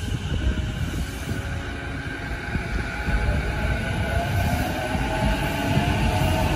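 JR East E233-2000 series electric commuter train pulling out and gathering speed. Its motors give a slowly rising whine over the low rumble of the wheels on the rails, growing louder.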